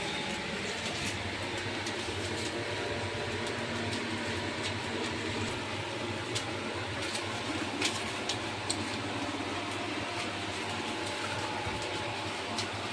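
Steady machine hum with a few sharp clicks, most of them bunched around the middle.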